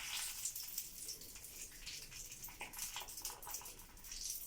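Hot melted candle wax being poured into a kinetic-sand mould, giving a faint hiss with scattered small crackles.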